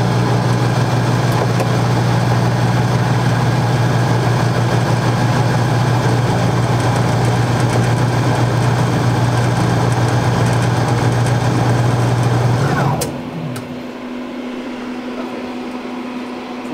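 A vehicle engine running steadily, then switched off about 13 seconds in, its sound winding down and stopping. A quieter steady hum remains after it.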